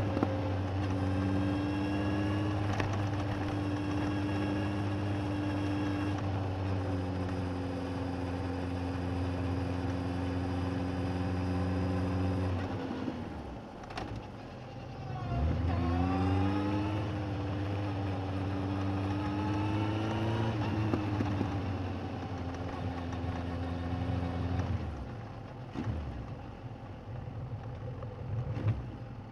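Suzuki GSX1250FA's inline-four engine, picked up by a recorder under the seat while riding. It runs at a steady pitch, falls away about halfway through, then rises as the bike pulls away and holds steady again before easing off near the end.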